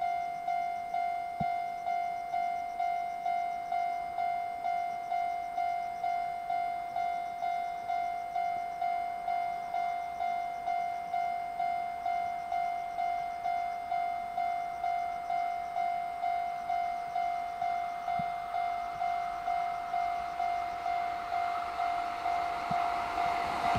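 Japanese level-crossing electronic warning bell ringing steadily, a single high clang repeating about twice a second, signalling that a train is coming. In the last few seconds the approaching freight train's rumble rises under it.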